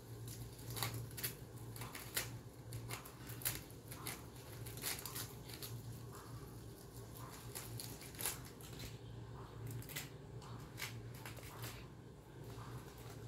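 Rabbits biting, tearing and chewing fresh green leaves and stems: a fast, irregular run of small crisp crunches and snaps, over a low steady hum.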